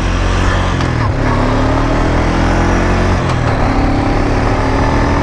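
Quad (ATV) engine running while riding. Its pitch climbs slowly as it speeds up, dips about three seconds in, then climbs again.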